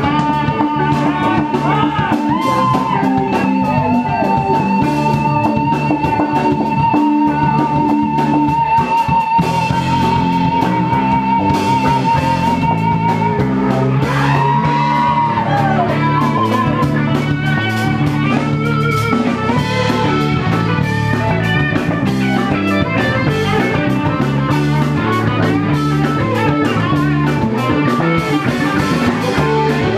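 Live rock band playing with electric guitars, bass and drum kit. A lead line holds one long note with vibrato for about the first half, then bends and slides away.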